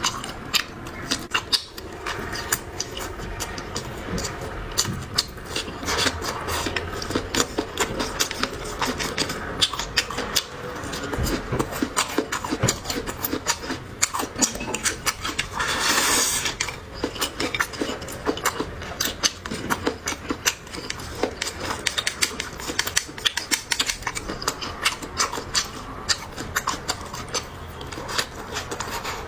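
Close-miked chewing and eating: a dense, irregular run of small wet clicks and crunches, with a brief louder rush of breath-like noise about sixteen seconds in.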